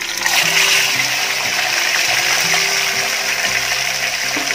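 A whole masala-coated red pomfret sizzling loudly in hot gingelly oil in a frying pan, the hiss starting suddenly the moment the fish goes into the oil and holding steady. Soft background music plays underneath.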